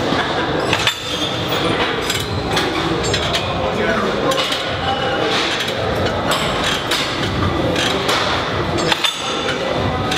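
Gym weights clanking and clinking at irregular intervals, metal striking metal, over a steady background of voices.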